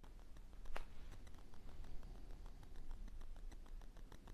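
Faint, rapid, irregular ticking and clicking picked up by a lavalier microphone, with one louder click about three-quarters of a second in. This is electromagnetic interference noise, which the owner traces to Wi-Fi being left on while recording.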